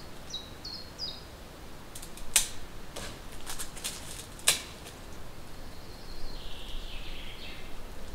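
A few sharp clicks and snaps from hands working at branches overhead, the loudest two about two seconds apart. Short high bird chirps come near the start, and a bird's raspy chatter near the end.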